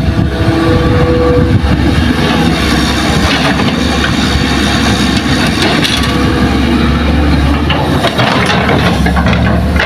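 Hitachi hydraulic excavator's diesel engine running under load as it swings and dumps a bucket of soil, with the clatter of soil falling into a dump truck's bed a few seconds in.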